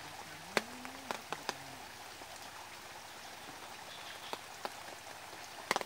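Steady even hiss like light rain, with a handful of short sharp ticks scattered through it. The loudest tick comes about half a second in, and a close cluster of ticks comes near the end. A faint distant voice is heard about half a second in.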